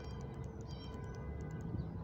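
Outdoor ambience: a low steady rumble with a faint hum, over which small birds chirp faintly in short high notes, with a brief flurry of chirps just under a second in.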